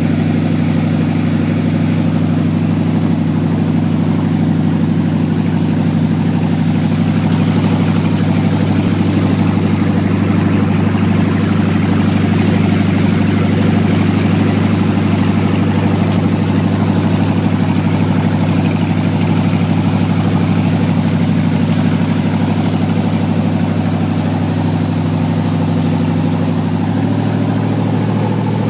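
PCM 5.7-litre 350 V8 inboard engine of a 1965 Century Sabre runabout running steadily, with the engine note shifting slightly near the end.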